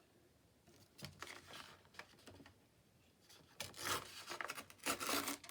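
Paper being handled and rustled: brief rustles about a second in, then denser, louder rustling and crinkling from about three and a half seconds in.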